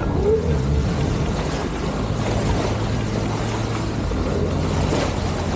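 Water rushing along the hull of a sailing yacht under way, with wind buffeting the microphone and a low steady hum underneath.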